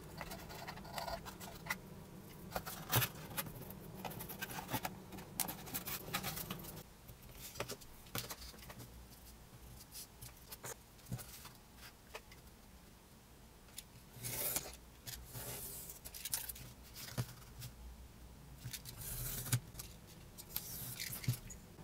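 Quiet handling sounds of corrugated cardboard on a cutting mat: scattered taps, clicks and rustles, then longer scraping strokes about two-thirds of the way in and near the end, as a strip of the cardboard is marked and cut along a steel ruler.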